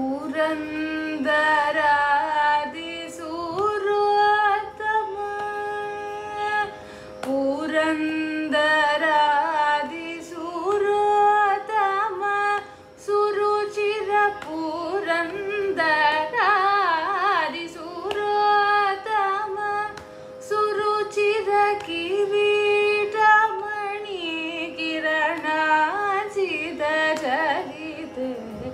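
A young woman singing a Carnatic kriti in raga Pantuvarali, in phrases with melodic ornaments (gamakas), over a steady drone tone.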